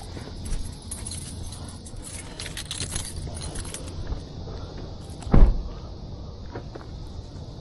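Light metallic jingling and clicking for the first few seconds, then one heavy thump a little past five seconds in, over a steady low rumble.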